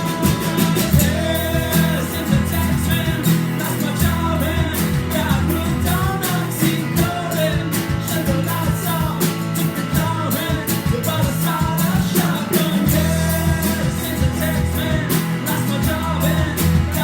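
A live band jam: a voice singing a rock song over strummed guitar, held bass notes and a steady drum beat, with the chord changing every few seconds.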